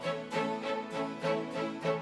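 Background music: pitched instrumental notes plucked or struck in a quick, even rhythm.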